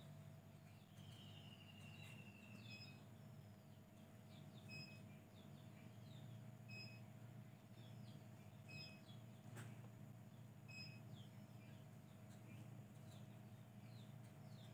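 Near silence with faint high chirps, one pair repeating about every two seconds among other scattered short chirps, over a low steady hum.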